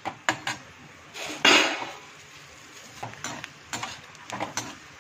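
A metal slotted spoon scrapes and clinks against an aluminium kadhai as peanuts are stirred in hot ghee, in irregular strokes with one longer, louder scrape about a second and a half in. A faint sizzle of the frying lies underneath.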